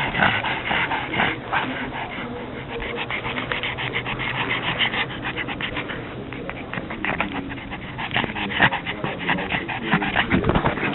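Pug breathing hard and noisily in quick, short breaths, several a second: an overheated pug.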